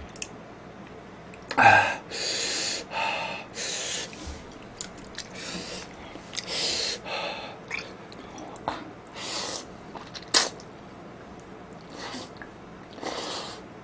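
A man slurping ramen noodles and chewing: several hissy slurps a few seconds apart, with a short vocal sound about a second and a half in and a sharp click about ten seconds in.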